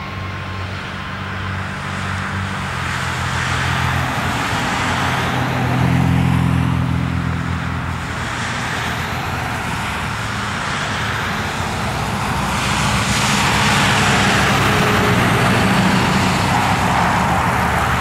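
Steady outdoor traffic noise: a low engine hum under a hiss that grows louder in the second half.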